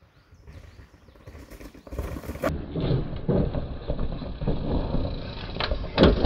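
Chainless downhill mountain bike rolling fast over rough trail: tyres and frame thud and rattle irregularly over rocks and roots, growing louder about two seconds in, with a couple of sharp knocks near the end.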